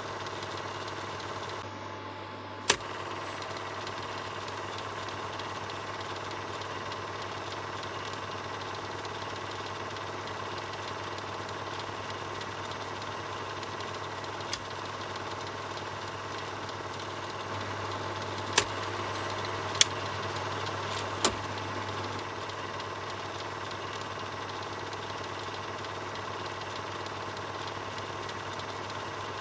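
Film projector running steadily, a mechanical whir with a low hum under it. A few sharp clicks cut through: one loud one about three seconds in and three more in quick succession past the middle.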